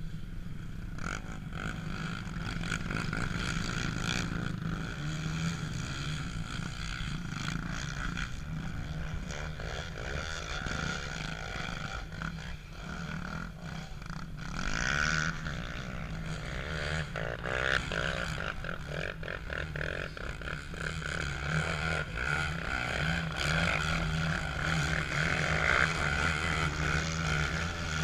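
ATV engines running, revving up and down several times about halfway through and again near the end over a steady low hum.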